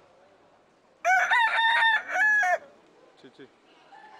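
A rooster crowing once, a loud drawn-out cock-a-doodle-doo of about a second and a half that starts about a second in.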